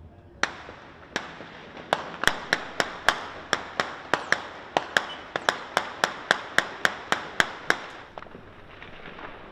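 Gunfire: about two dozen sharp shots, two single shots followed by a steady run of roughly four shots a second, each with a short echo, stopping about eight seconds in. These are shots in an exchange of fire between armed men.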